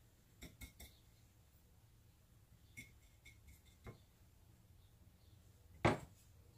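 Light clicks and clinks of glassware, a plate and utensils being handled on a kitchen counter: a few soft taps, then one sharper knock about six seconds in.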